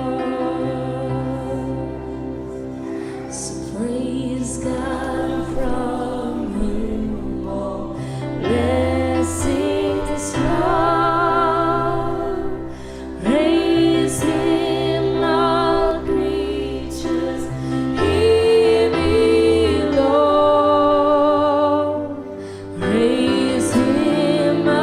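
Slow live worship music: sustained backing chords with sung melody phrases that have a marked vibrato and enter a few seconds in.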